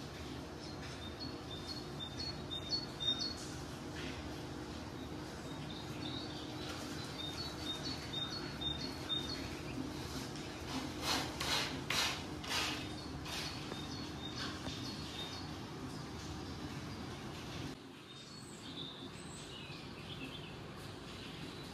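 Small birds chirping, short high calls repeated over a steady low background hum, from a bird video played for cats. A run of louder, sharper sounds comes about eleven to thirteen seconds in.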